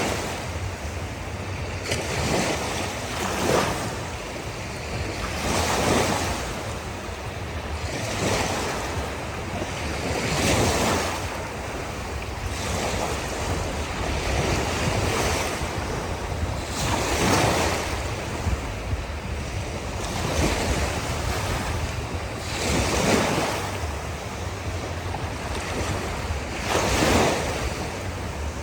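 Ocean waves breaking and washing on a shore, a surge of rushing water every two to four seconds over a steady low rumble of surf.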